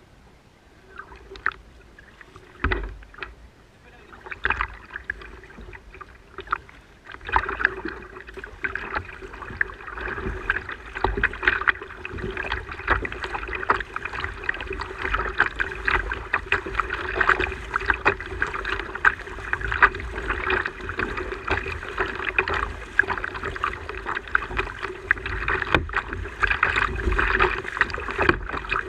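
Kayak under way, with water splashing and knocking around the hull. From about seven seconds in it gets louder and a steady whine runs under the splashing.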